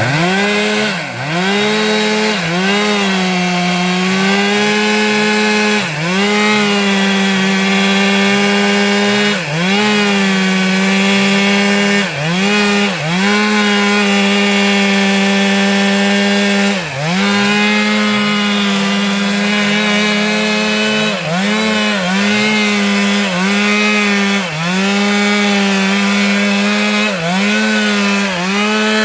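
Stihl MS 462 two-stroke chainsaw running at high revs while cutting into a sengon trunk. Its pitch dips briefly and recovers every few seconds, at times several in quick succession near the end.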